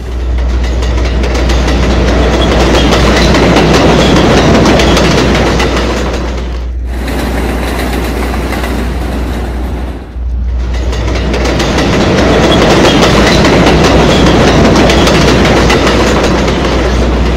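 Subway train running along the track, a dense, steady rolling noise over a low hum. The sound breaks off briefly twice, about 7 and 10 seconds in.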